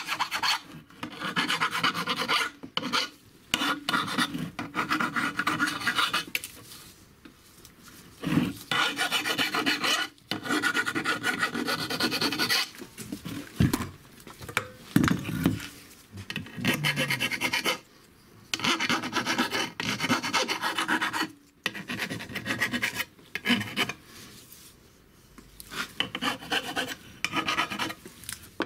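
A rasp filing the edges of an aluminium Vespa PX engine case half, rounding off the sealing edges. Scraping strokes come in runs of several seconds, broken by short pauses.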